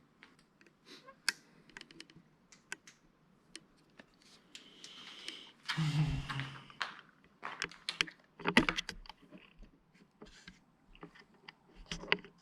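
Irregular small clicks and taps, with a denser rustling stretch about six seconds in and a louder cluster of clicks a little later.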